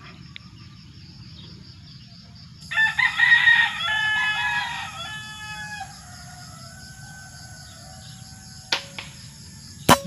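A rooster crows about three seconds in, a call of roughly three seconds. Near the end a single sharp air-rifle shot is fired at a green pigeon in the tree, with a small click about a second before it.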